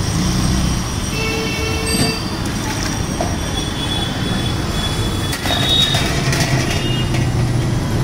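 Busy street traffic noise: a steady low din of passing motorbikes and rickshaws, with thin high-pitched squealing tones on top, the longest lasting a few seconds from about the middle.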